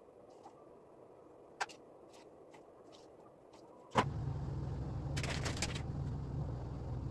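A few faint clicks, then about four seconds in a sharp click and a steady electric hum, like a small motor running, that stops abruptly about three seconds later. Light rustling and clicking sounds come over the hum midway.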